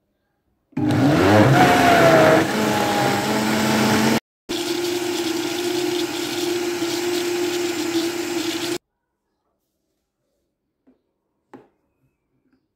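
Countertop blender motor blending cheesecake batter: it spins up with a rising whine about a second in, cuts out briefly about four seconds in, then runs again at a steady pitch and stops near the nine-second mark. A few faint clicks follow.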